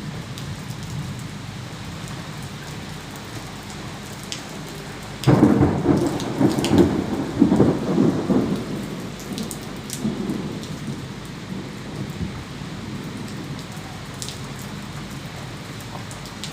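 Steady rain falling, with scattered drops ticking close by. About five seconds in, a sudden loud crack of thunder breaks into a rolling rumble that dies away over several seconds.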